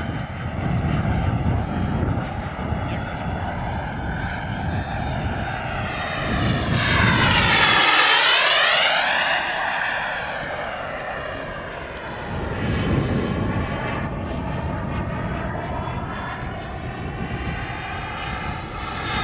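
RC model jet's turbine engine whining in flight. About seven to nine seconds in it passes close, getting louder while the whine sweeps down in pitch, then fades; it grows louder again near the end as it comes round for another pass.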